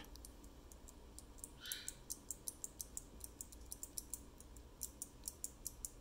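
3D-printed beam spring key switch in Cherry MX size being pressed over and over, giving short, quiet clicks at about four a second from its click mechanism.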